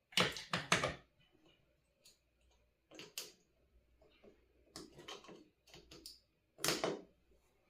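A series of short clicks and knocks from small parts and tools being handled on a workbench while an electronics kit is assembled: the loudest pair comes right at the start, then scattered lighter taps follow.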